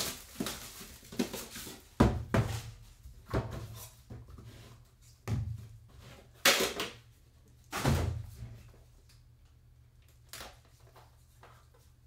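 A Panini Immaculate trading-card box, cardboard, handled and opened by gloved hands: a run of sharp knocks and thuds as its sleeve and inner box are pulled apart and set down, with rustling in between. It falls much quieter for the last few seconds.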